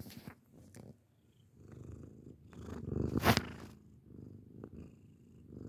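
Cat purring close up, a low rapid rumble that swells and fades, with a brief louder rustle about three seconds in.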